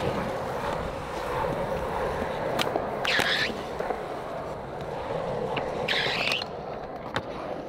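Skateboard wheels rolling on smooth concrete, a steady rumble, with a few sharp clicks and knocks from the boards and two short scrapes, about three and six seconds in.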